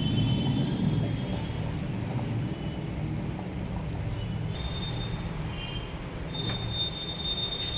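Thick egg gravy boiling in a metal pot, a steady bubbling.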